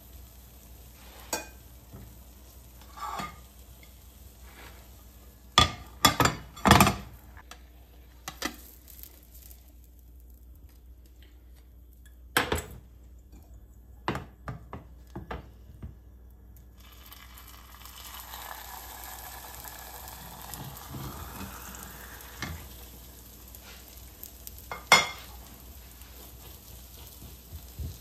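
Kitchen utensils knocking and clinking against a pan or dish several times, with a stretch of food sizzling in hot oil about two-thirds of the way through while cooking a tortilla de patatas.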